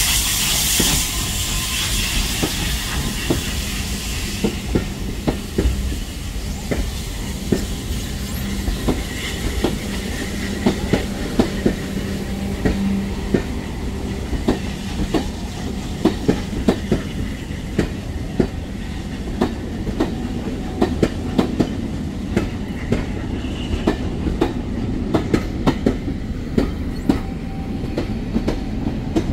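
A steam-hauled passenger train rolling slowly past, its coach wheels clicking over the rail joints in an uneven run of sharp clacks. A steam hiss from the locomotive dies away about four seconds in.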